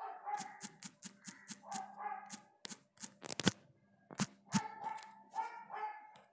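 A dog barking repeatedly in short calls, mixed with many sharp tapping clicks, several a second, as keys are pressed on a phone's on-screen keyboard.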